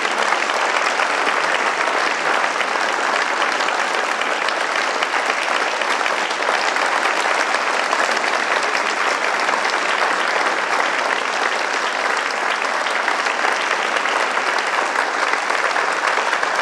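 Audience applauding: dense, steady clapping that keeps up without a break.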